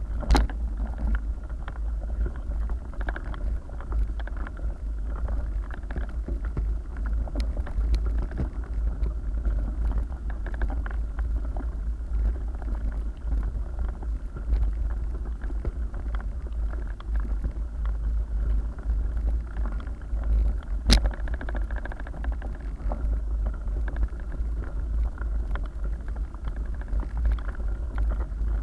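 Ride noise from a mountain bike's onboard camera on a rough gravel track: a steady low rumble of wind and vibration with the crunch and rattle of tyres over loose stones. There are scattered small knocks from bumps, with a sharp knock about 21 seconds in.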